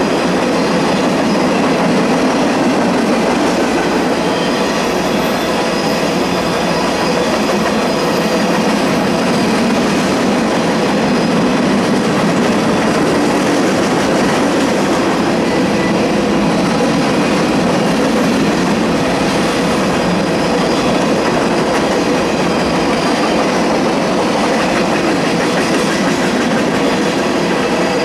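Empty covered hopper cars of a freight grain train rolling past on the track, their wheels on the rails making a steady, unbroken noise.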